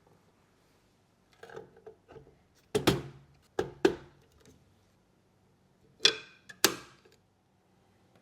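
Sharp clicks and knocks of hard computer parts being handled, about six in all, mostly in close pairs, with fainter taps between them.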